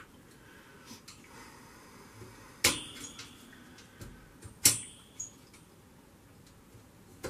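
Two sharp clicks about two seconds apart, with a few lighter ticks and taps around them: hands working the thermostat's capillary tube and its plastic and metal fittings up under a shelf inside an upright freezer.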